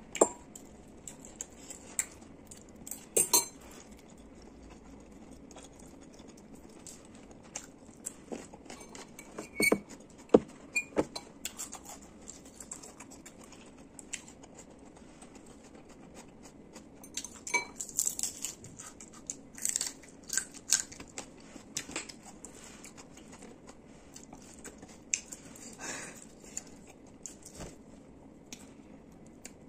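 A metal fork clinking and scraping against a ceramic noodle bowl in scattered bursts, with soft eating noises between and quiet stretches.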